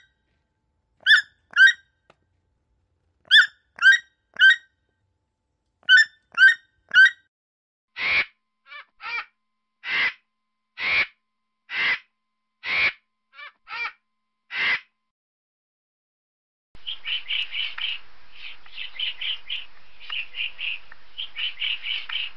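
Toucan giving short croaking calls in quick groups of two or three. Then about ten harsh squawks from vultures, roughly one a second. Then, over a steady background hiss, a pileated woodpecker's rapid runs of repeated call notes.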